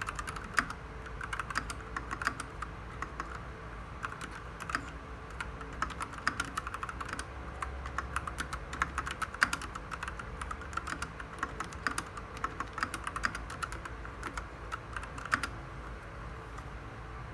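Typing on an RK68 mechanical keyboard with linear red switches: a fast, irregular run of keystroke clacks that thins out shortly before the end.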